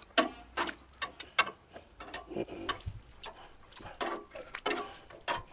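Metal grill tongs clicking against a gas grill's grate and a small bowl as grilled peppers are lifted off, a string of irregular sharp clicks.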